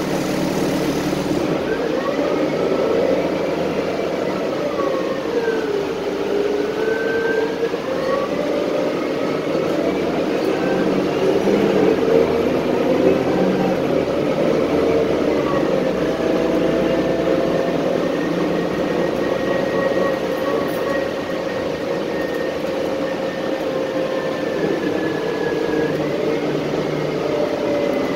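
Transit bus engine and drivetrain heard from inside the cabin as the bus pulls away and accelerates: a whine that rises in pitch, drops back a few times, then holds steady at cruising speed, over constant road rumble.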